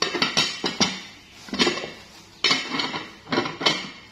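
Metal kitchenware clattering: a spoon knocking and scraping in a metal rice pot, in about four bursts of sharp clinks and knocks.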